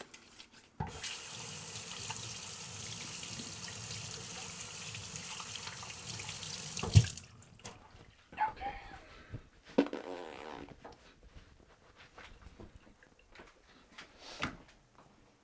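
Water tap running into a sink while hands are washed: a steady rush of water for about six seconds. It stops with a sharp knock, followed by a few faint clicks and knocks.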